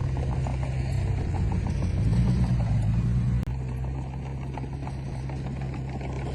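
Heavy machinery diesel engine running under load, with a low steady drone that rises briefly about two seconds in. About halfway through the sound jumps abruptly, then carries on slightly quieter.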